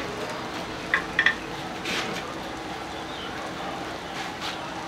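Metal kitchenware clinking: three light, ringing clinks in quick succession about a second in, over steady background noise.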